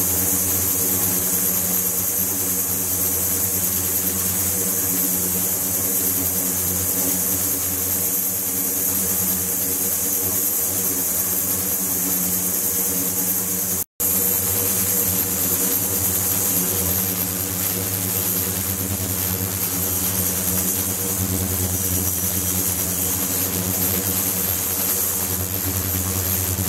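Ultrasonic tank running: a steady hum with a high hiss and a thin high-pitched whine over it, broken by a momentary dropout about halfway through.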